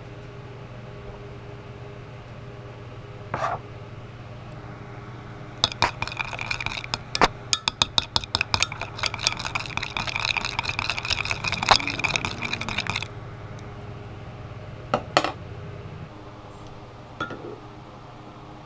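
Metal spoon stirring liquid plastisol in a glass measuring cup, clinking and scraping rapidly against the glass for about seven seconds as the cup rings. A few single clinks come before and after, over a steady low hum that drops away near the end.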